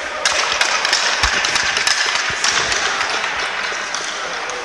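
Ice rink sounds close by: skate blades scraping the ice, with many sharp clacks of hockey sticks and pucks on the ice.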